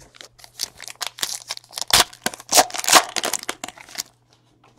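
Foil wrapper of a trading card pack being torn open and crinkled: a quick run of crackles that stops about four seconds in.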